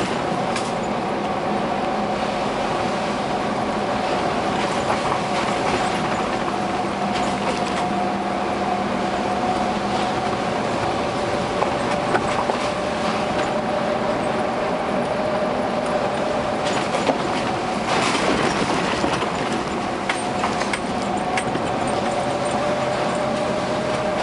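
A vehicle driving slowly along a driveway, its engine and tyre noise steady with a faint steady whine, and occasional light knocks and rattles.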